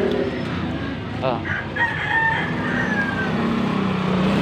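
A rooster crows once: a drawn-out call that starts about a second in, lasts about two seconds and falls slightly at its end. A steady low rumble runs underneath.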